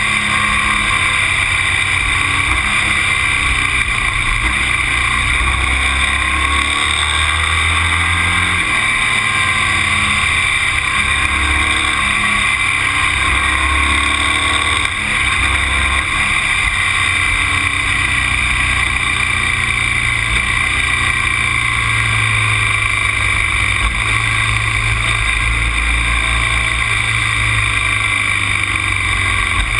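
Onboard sound of a road vehicle under way: the engine note steps and shifts in pitch every few seconds, over a steady rush of wind and road noise.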